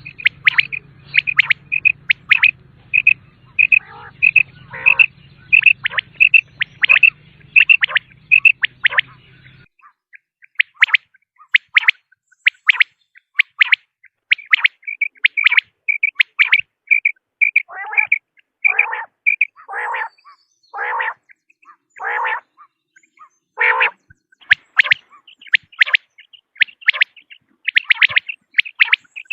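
Common quail calling: a fast string of short, high pips, with a run of about six longer calls that fall in pitch, roughly one a second, in the second half. A faint low hum lies under the first third.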